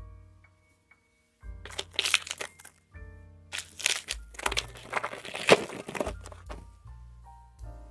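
Booster-pack wrapper crinkling as a trading-card pack is torn open and handled, in two spells, the second longer, over soft background piano music.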